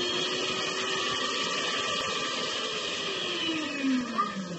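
Electric mixer beating eggs and sugar, its motor whining steadily, then falling in pitch as it slows about four seconds in.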